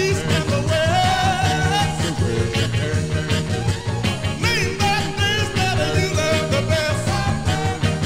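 A 1963 rhythm-and-blues record playing, with a steady beat under wavering melodic lines.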